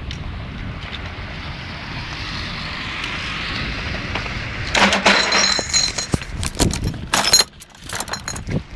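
A car passing on a wet road, its tyre hiss swelling and easing off over the first few seconds. From about five seconds in, loud rattling and clinking as the bicycle jolts over the paving, with a brief lull near the end.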